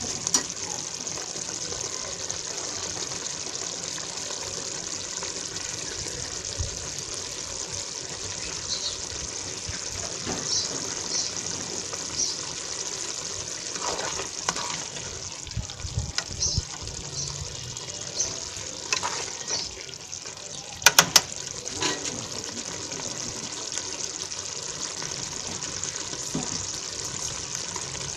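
A pot of sweet potato leaf stew (matembele) boiling hard, a steady bubbling hiss with scattered small pops. A couple of sharp clicks come close together about two-thirds of the way through.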